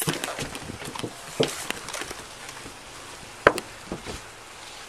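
Irregular knocks, taps and rustles from a sheriff's deputy's footsteps and duty gear, heard close on a chest-worn Axon Body 2 camera, with a sharper knock about three and a half seconds in.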